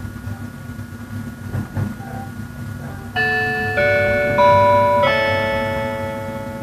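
Low running rumble of an E353 series electric train heard inside the car, then, about three seconds in, the on-board announcement chime: four bright electronic notes in a short rising-and-falling melody that ring on and fade, the signal that an automatic announcement is about to start.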